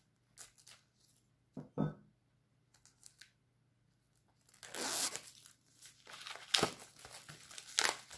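A few light clicks and one knock as a knife works at the plastic shrink-wrap on a CD digipack, then from about four and a half seconds in the shrink-wrap is torn and crinkled off the case.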